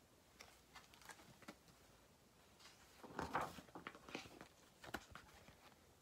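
Paper rustling as a picture book's page is turned and the book handled: a few faint clicks, then a louder rustle about three seconds in and softer crackles after it.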